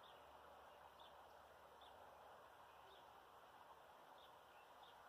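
Near silence: a faint hiss of room tone, with a small bird's faint high chirp repeating at uneven intervals of about a second.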